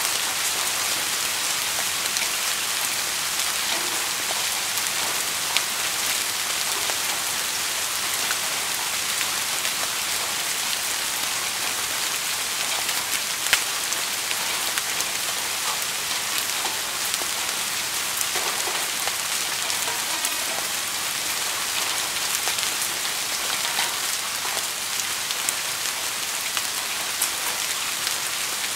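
Steady rain falling, an even hiss with scattered sharper drop hits, one louder hit about halfway through.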